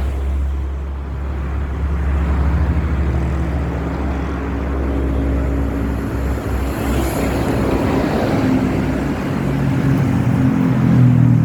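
Large bus engine running close by with a steady low rumble, its note growing stronger in the second half as the bus pulls past.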